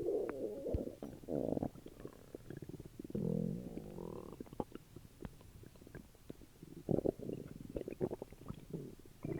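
Human stomach and intestines gurgling after a meal: rumbling gurgles with a wavering pitch, among many small pops and bubbling clicks, louder in several bouts a few seconds apart.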